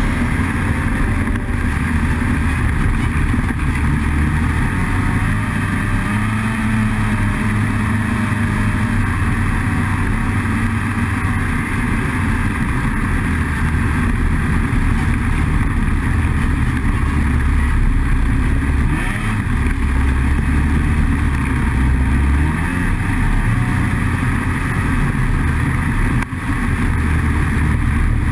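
Snowmobile engine running steadily under way, its pitch shifting up and down with the throttle; the sound drops out briefly near the end.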